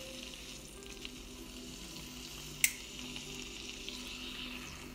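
Chicken breast sizzling steadily as it fries in melted butter and olive oil over medium heat, with a single sharp click about two and a half seconds in.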